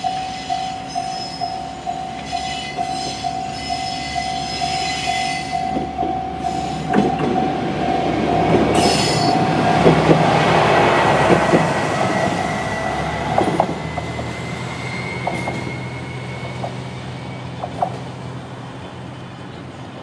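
A Japanese level crossing's electronic warning bell, in the JR Central-type tone, dings about two and a half times a second and falls silent about seven seconds in. A YR-3000 diesel railcar then rolls through the crossing, its wheels knocking over the rail joints with a brief high wheel squeal. The diesel engine's low running hum fades toward the end.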